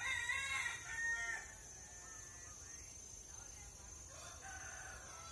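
A rooster crowing, one loud crow at the start and a fainter call about four seconds in.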